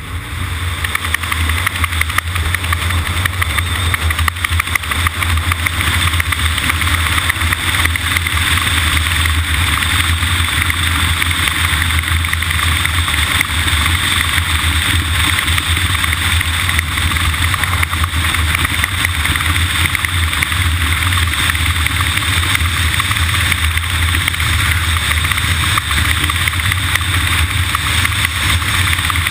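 Steady noise of a moving vehicle: a low drone under a rush of wind and road noise, building up over the first second and then holding level.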